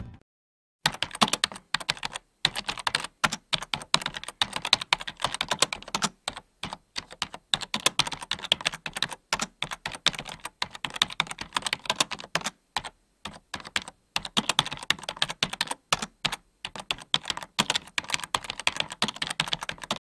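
Computer keyboard typing sound effect: rapid runs of keystroke clicks with short pauses between them, starting about a second in.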